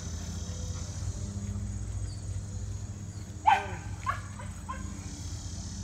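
A dog barks once, short and loud, about three and a half seconds in, then gives two fainter yelps, over a steady low rumble.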